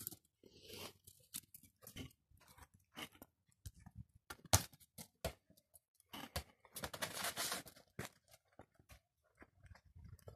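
Scattered light clicks, taps and scuffs of a Pomeranian pushing and mouthing a small plastic ball on paving stones, with one sharper click about halfway through and a longer scuffle after it.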